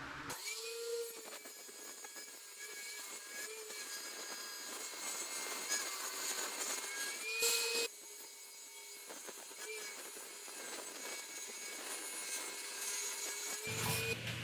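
A small electric motor running with a steady whine over a hiss, its pitch dipping briefly and recovering every few seconds as if under load. The sound breaks off abruptly about eight seconds in, then picks up again.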